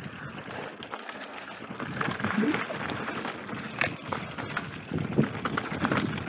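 Mountain bike rolling down a dirt and rocky trail: tyres crunching over gravel with the bike rattling, and sharp knocks from rocks and the frame, the loudest about four seconds in.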